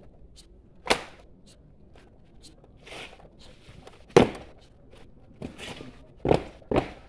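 Drill boots stamping on tarmac as a squad of cadets performs foot drill: sharp, loud stamps about a second in, at about four seconds, and twice in quick succession near the end.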